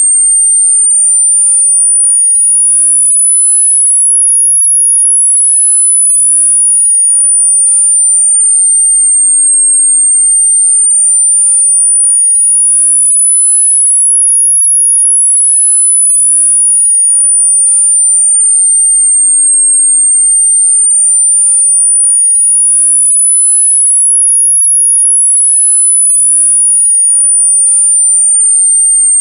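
A single pure, very high-pitched electronic sine tone, a tinnitus masking sweep, gliding slowly and smoothly up and down in pitch, about three rises and falls with roughly ten seconds per cycle.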